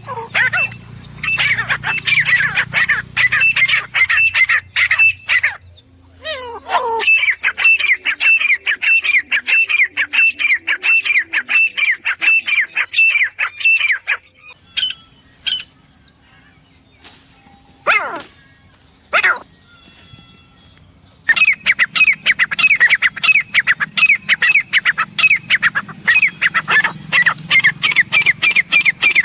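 Grey francolin (teetar) calling: long runs of short, shrill, falling notes repeated several times a second. The calling comes in three bouts, with a pause in the middle broken by a couple of single notes.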